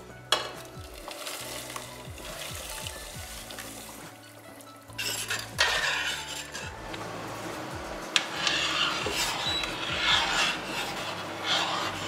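A metal spoon stirring and scraping around a stainless steel pot of liquid, with a couple of sharp clinks of spoon against the pot.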